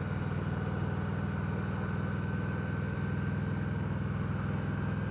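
Victory Vegas motorcycle's V-twin engine running steadily at low revs, its pitch unchanging.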